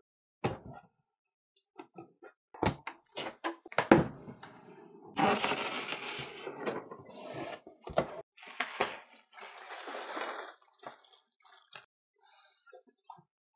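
A cardboard shipping box being opened and unpacked by hand: sharp knocks and taps of cardboard, with longer stretches of plastic air-pillow packing rustling about five seconds in and again about nine seconds in.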